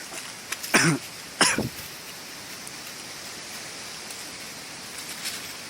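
A person coughs twice in quick succession, then there is a steady background hiss.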